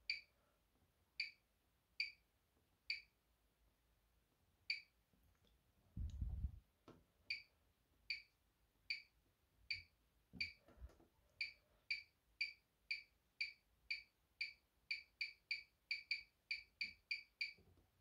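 Bosch Serie 6 washing machine's control panel giving short, high beeps, the key-press feedback as settings are stepped through. The beeps are spaced out at first, then come faster, about three a second near the end, with a few dull low thumps between them.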